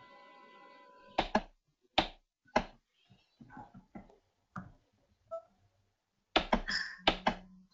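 Computer keyboard and mouse clicks: a scattering of sharp taps, with a quick run of clicks near the end. A faint steady hum fades out about a second in.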